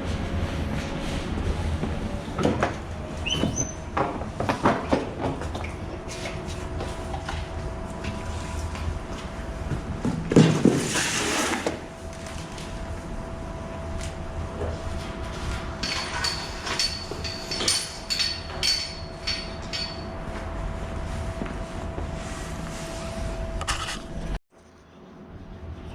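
Clicks, knocks and rattles of hands working on car body and trim parts, with a loud rushing hiss for about two seconds around the middle.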